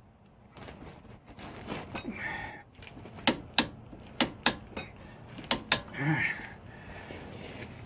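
Click-type torque wrench tightening the nut on a tie rod end's stud, giving sharp clicks in three close pairs as it reaches its set torque, amid the rustle of handling the wrench.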